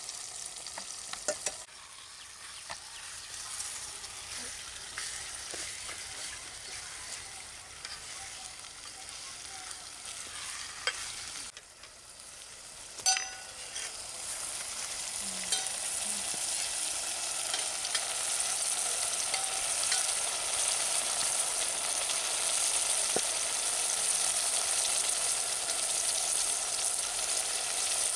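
Chicken curry sizzling in an aluminium pot over a wood fire. The sizzling grows louder about halfway through, and a few sharp knocks, like utensils against the pot, come earlier.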